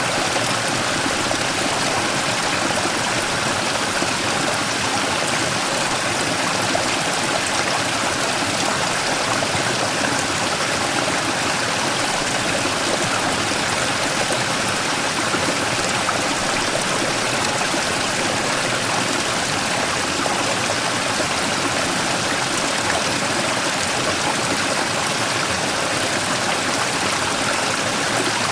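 Mountain stream rushing and splashing over a large rock in a small waterfall, a steady, even water noise.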